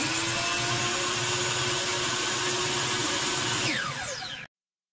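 DeWalt miter saw running free at full speed with no cut, its motor and blade making a steady whine. At about 3.7 s the trigger is released and the motor winds down with a falling pitch.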